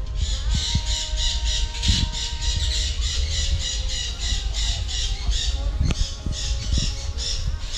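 Parakeets squawking: a fast, even run of harsh calls, about five a second, with a short break a little after five seconds in before they start again.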